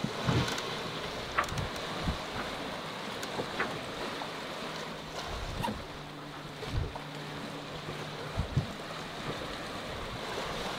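Sea noise aboard a sailboat under way: water rushing past the hull and wind on the microphone, with a few low thumps now and then.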